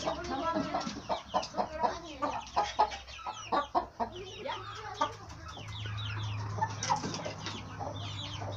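Chickens clucking and calling in many short, quick calls, mixed with high falling peeps from young chicks. The calls are densest in the first half.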